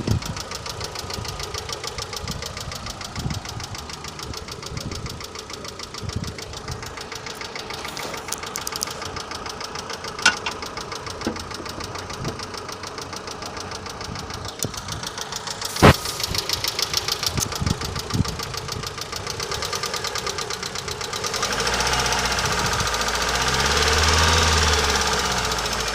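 Mitsubishi Lancer IX engine running with a fast, steady ticking from its hydraulic lash adjusters (lifter knock). There are a couple of louder single clicks along the way, and near the end the engine is revved up and settles back down.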